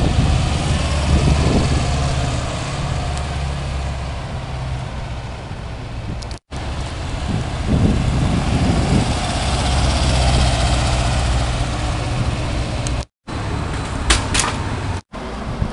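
Air-cooled flat-four engine of a classic Porsche 356 convertible running at low revs as it drives past in city traffic, a steady low engine note heard in two clips cut together. Near the end a short clip of an early air-cooled Porsche 911 Targa passing, with a few sharp clicks.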